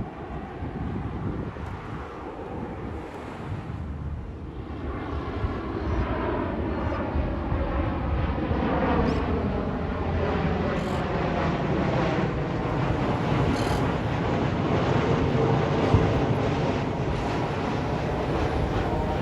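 Jet airliner on approach to land flying past, its engine noise swelling about five seconds in and staying loud, with a faint whine that slowly falls in pitch as it goes by. Some wind noise on the microphone.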